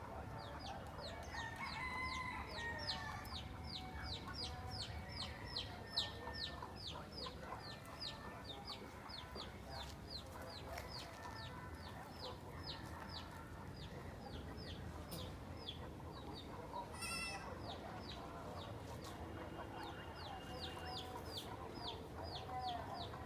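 Chickens clucking, with a steady run of short high chirps, about three a second, that drops out for a few seconds past the middle.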